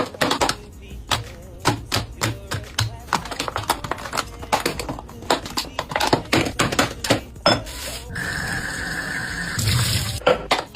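Hard plastic containers and lids clicking and knocking as they are handled, then water running from a tap for about a second and a half near the end.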